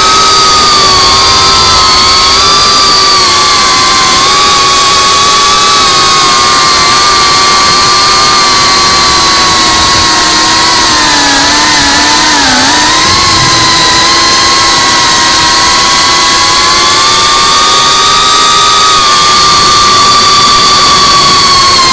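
FPV quadcopter's electric motors and propellers whining at high throttle, close to the onboard camera, over a steady rushing noise. The whine wavers in pitch as the throttle changes and drops briefly about halfway through before climbing again.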